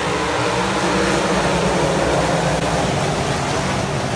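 A pack of winged sprint cars racing on a dirt oval, many V8 engines at high revs blending into one loud, steady wall of engine noise.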